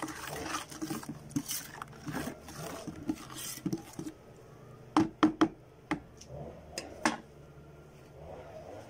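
Hand rubbing and scraping wet cement against the inside of a plastic bucket, then several sharp knocks: three in quick succession about five seconds in and a few more over the next two seconds.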